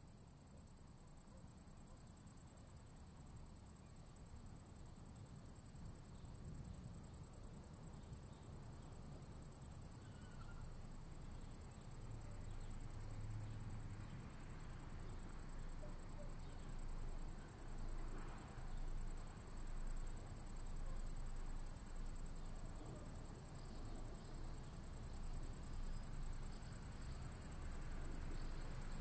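Crickets trilling steadily and high-pitched over a low rumble, the whole ambience slowly growing louder.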